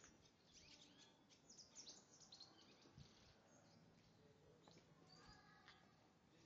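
Faint birds chirping in quick, high twitters, mostly in the first half, over a near-silent outdoor background.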